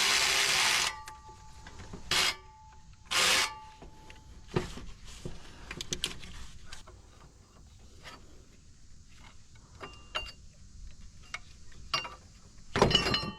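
Power impact wrench working the air pump pulley bolts on a Ford engine. It runs in a burst that stops just under a second in, then two short bursts around two and three seconds in. Between them come light metallic clicks and rattles of tools and parts, and there is another short burst near the end.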